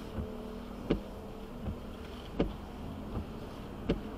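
Regular clicking inside a moving car over a steady low hum. A sharper click comes about every one and a half seconds, with a softer click halfway between each pair.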